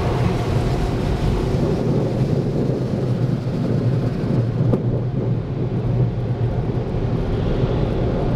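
Car wash air dryers blowing, heard from inside the car: a loud, steady rushing noise, its highest hiss thinning a little over halfway through.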